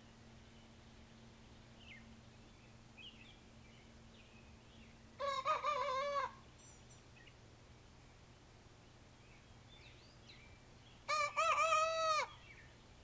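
Two-month-old cockerel crowing twice, about six seconds apart, each crow about a second long. The crows are high and thin with a wavering, broken start: the immature crow of a young rooster learning to crow.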